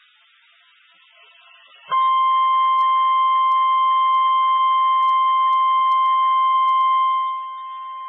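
Emergency alert attention signal: the National Weather Service's single steady 1050 Hz warning tone comes in about two seconds in and holds at one pitch. Near the end it drops to a lower level but keeps sounding.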